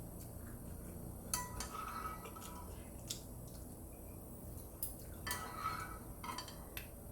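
Eating utensils clinking and scraping against a bowl of noodles, several light clinks spread out over a few seconds.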